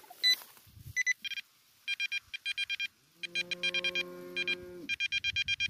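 Metal detector pinpointer beeping: several runs of rapid high electronic beeps, about eight a second. About three seconds in, a steady low tone joins for about a second and a half. The target reads as ferrous (iron).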